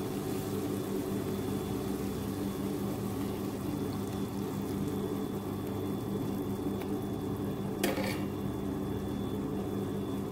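Masala bubbling and sizzling in an iron kadai (cheenachatti) as ground roasted-coconut paste goes in, over a steady low hum, with one short clack near the end.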